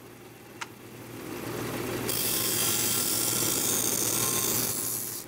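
Benchtop belt-disc sander running with a steady motor hum. About two seconds in, a small brass T-bevel head is pressed against the spinning sanding disc, and a loud, harsh grinding hiss holds for about three seconds before easing off near the end. The head is being ground down slowly, a little at a time.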